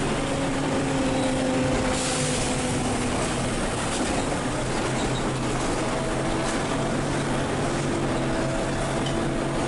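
Volvo B12M biarticulated bus's diesel engine and road noise heard from on board while driving. The engine note eases down over the first few seconds, then picks up again and holds steady later on, with a few light rattles.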